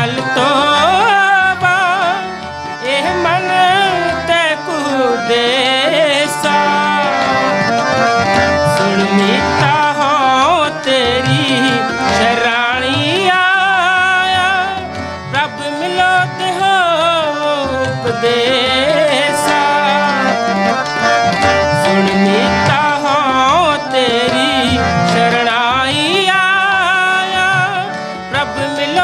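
Sikh kirtan: a voice singing a devotional hymn in a melody full of sliding turns, over tabla.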